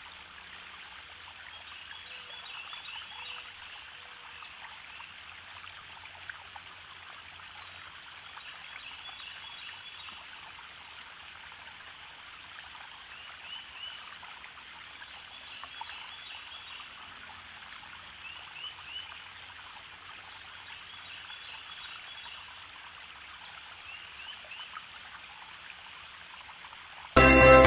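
Colour pencil scratching on paper while drawing: a faint, steady hiss broken by small clusters of short strokes. Loud music comes in just before the end.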